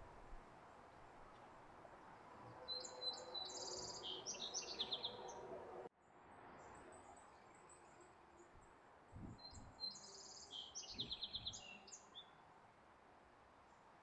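A small songbird singing a short, quick phrase of high trills twice, once about three seconds in and again about ten seconds in, faint over a steady outdoor background. The sound cuts out abruptly for a moment about six seconds in.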